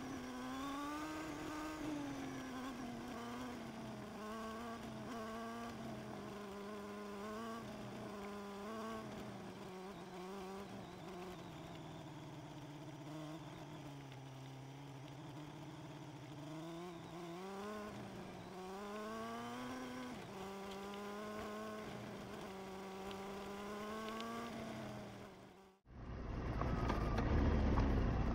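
Motorcycle engine running at low speed, its pitch rising and falling as the throttle opens and closes. About 26 seconds in, the sound cuts off abruptly and a louder, deeper rumble takes over.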